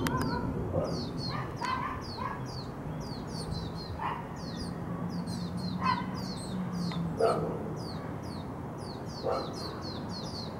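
Lesser goldfinch fledglings begging for food: rapid, high, falling calls, several a second, as the parent feeds them. A few louder, lower, short sounds stand out, the loudest about seven seconds in.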